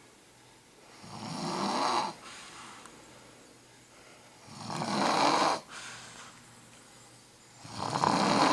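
An elderly woman snoring in her sleep: three long snores about three seconds apart, each building for about a second and then cutting off.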